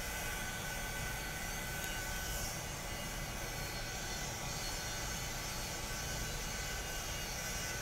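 Steady running noise of an industrial boiler plant, a continuous machinery hum with a thin high whine held on one pitch.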